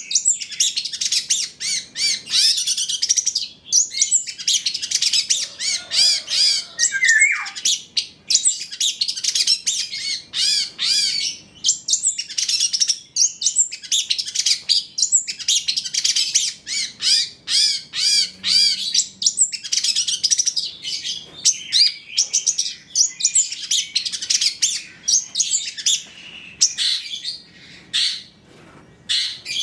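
Long-tailed shrike (cendet) singing a fast, almost unbroken stream of high, quickly rising and falling notes: a varied 'full isian' song packed with phrases mimicked from other birds.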